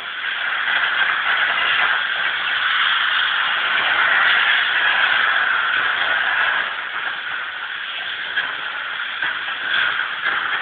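Steady hiss of steam jetting from a steam washing machine's nozzle. It is louder for the first six seconds or so, then eases a little.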